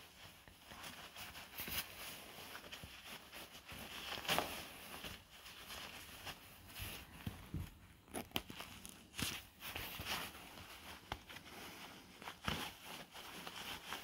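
Rustling and swishing of a nylon down parka and insulated winter gloves being pulled on and strapped at the wrist. Several short scratchy bursts stand out, the loudest about four, nine, ten and twelve and a half seconds in.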